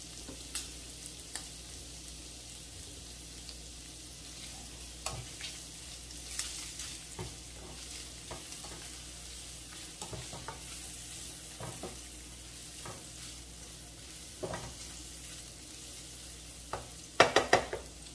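Sliced sausage, garlic and ginger sizzling in a nonstick frying pan with a steady hiss, while a spatula scrapes and taps through the pieces. A quick run of louder spatula knocks on the pan comes near the end.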